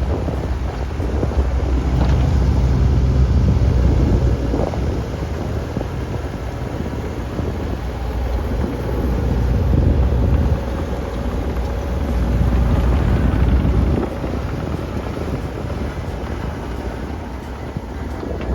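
Mini excavator's diesel engine running, its note swelling louder for a few seconds at a time and then dropping back sharply as the hydraulics are worked, with wind noise on the microphone.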